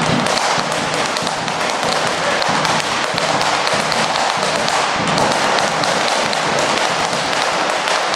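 Fast malambo percussion: bombo drums beaten while the dancers stamp their boots, a dense unbroken run of taps and thuds.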